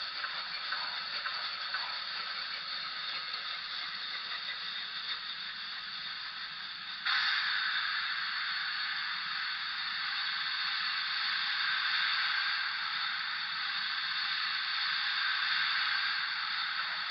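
Sound effects from a Broadway Limited PRR T1 model steam locomotive's Paragon 3 sound decoder: scraping coal-shovelling sounds, then about seven seconds in a louder, steady steam hiss starts abruptly as the engine is readied to move.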